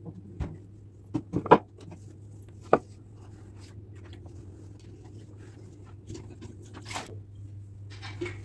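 A few short knocks and clatters of household things being handled, a cluster about a second and a half in (the loudest) and another about a second later, over a steady low hum.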